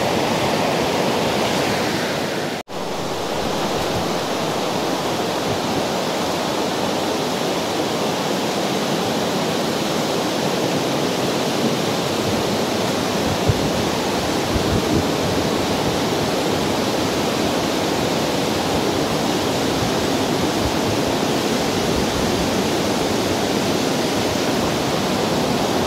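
Rushing river water, a steady dense wash of noise from fast-flowing water close by. It breaks off for an instant about two and a half seconds in, at an edit, then carries on unchanged.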